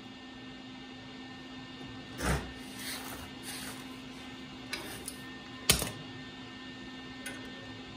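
A few scattered knocks and clinks of metal being handled at a trailer's axle and shock bracket, the sharpest a little past the middle, over a steady low hum.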